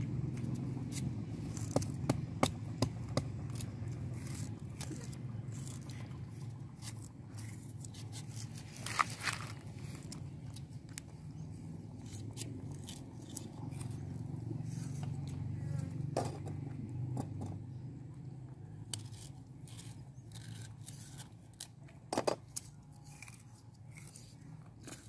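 Scattered small clicks and scrapes of a kitchen knife peeling food by hand, with sharper clusters of clicks about two seconds in, around nine seconds and near the end, over a low steady rumble.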